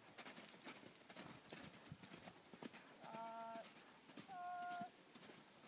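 Faint hoofbeats of a sport pony mare cantering loose on arena dirt, a quick irregular run of soft thuds. Two short, steady-pitched calls sound about three and four seconds in.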